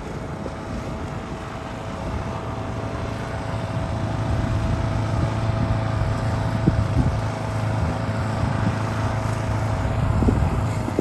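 A vehicle running steadily, its low hum holding an even pitch, with rough wind noise on the microphone.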